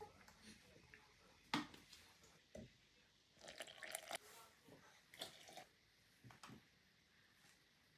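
Faint kitchen handling sounds while a shake is made: a few soft knocks and clinks of containers and utensils, with a short run of small liquid and squishy noises around the middle.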